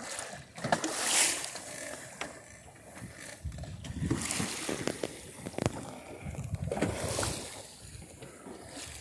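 Sea water rushing and slapping along the hull of a small sailboat under way in a swell, coming in surges about every three seconds, with a few small knocks between.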